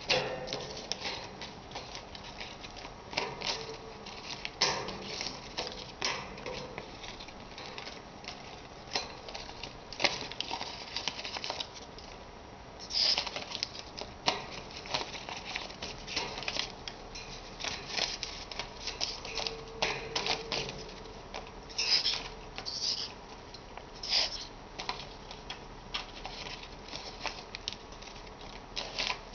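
Rainbow lorikeet playing with a piece of paper: irregular crinkling, rustling and crackling of the paper in quick runs of small clicks, with a few louder crackles.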